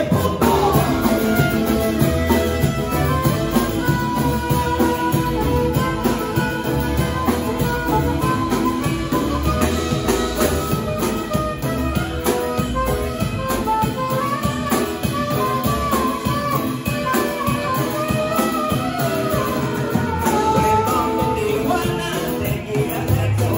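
A live band playing: a saxophone carries a gliding melody over strummed acoustic guitar and a drum kit.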